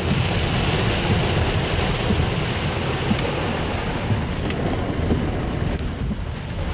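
A car driving through heavy rain on waterlogged roads: a steady wash of rain and tyre spray over a low road rumble.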